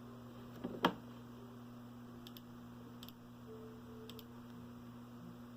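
Quiet room tone with a steady low hum. A sharp click or knock just under a second in is the loudest thing, with a few faint ticks scattered around it.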